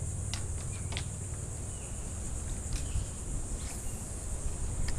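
Steady high-pitched insect drone, with a low rumble of wind on the microphone and a few short sharp clicks.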